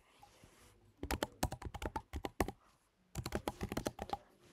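Typing on a computer keyboard: two quick runs of keystrokes, the first about a second in and the second just after three seconds.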